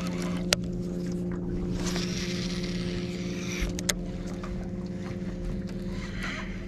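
A boat motor running with a steady hum, broken by two sharp clicks, about half a second in and near four seconds in.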